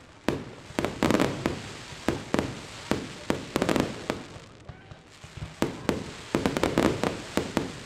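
Fireworks display: a rapid series of aerial shell bangs, each trailing off in an echo, coming in bunches with a short lull about halfway through.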